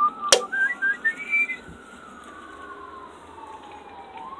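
An emergency-vehicle siren wailing, its pitch sliding slowly down and back up. There is a sharp click about a third of a second in and a few short high chirps in the first second and a half.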